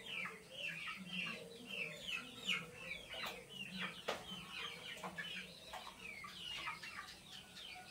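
Chickens calling: a continuous run of short, high, falling chirps, several a second, with a couple of brief clicks midway.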